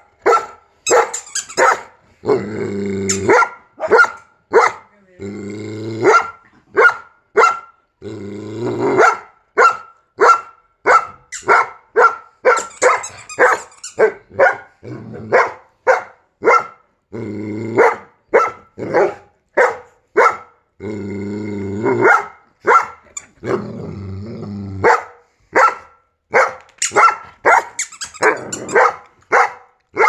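Schnauzers barking, a run of short sharp barks somewhat over one a second, broken about six times by a low growl lasting about a second.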